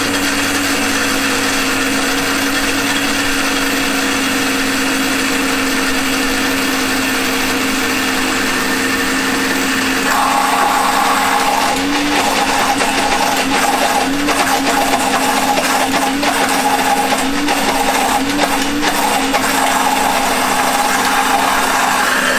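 Countertop blender running continuously, emulsifying crushed garlic as vegetable oil is drizzled in slowly to make toum (garlic paste). Its motor hum holds steady, turning slightly louder and brighter about ten seconds in.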